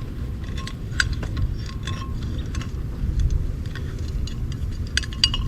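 Small irregular clicks and scrapes as an outlet box is hand-threaded onto a conduit connector, over a steady low rumble.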